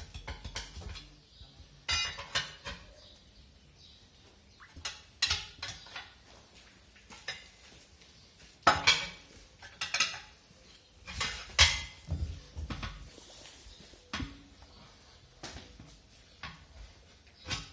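Steel tire pry bars clanking and scraping against a truck wheel's steel rim as the tire bead is worked by hand, in short clusters of metal knocks with pauses between. The loudest come about nine and twelve seconds in.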